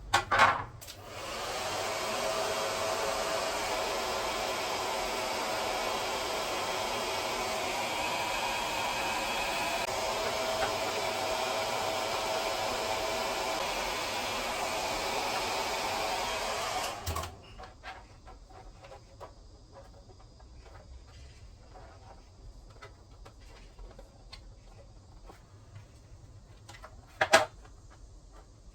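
Cool One portable air conditioner's fan running with a steady rush of air and a faint whine, coming on with a click and spinning up over about a second, then cutting off sharply a little past halfway. Light ticks follow, and a sharp click near the end.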